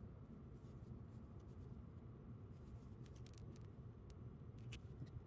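Faint rustling and scratching of plush fabric being handled, with scattered light ticks, as straight pins are worked through a mattress cover's seam and cording.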